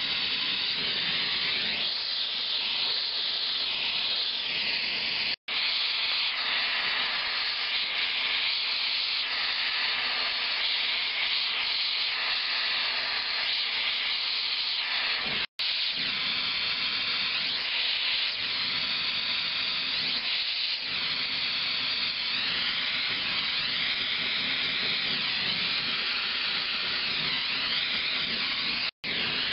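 Gas flame hissing steadily and loudly, broken by momentary dropouts about 5 and 15 seconds in and again near the end.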